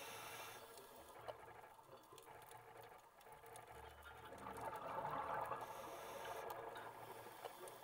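Faint underwater scuba breathing: regulator hiss near the start and again about six seconds in, with bubbling exhalation loudest about five seconds in.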